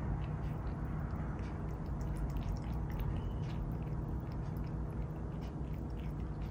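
A domestic cat lapping water from a bowl: a quick, irregular run of small wet clicks, several a second, over a steady low hum.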